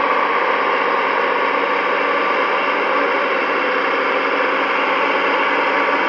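Dresser TD15C crawler dozer's diesel engine running steadily as the machine moves and pushes dirt with its blade.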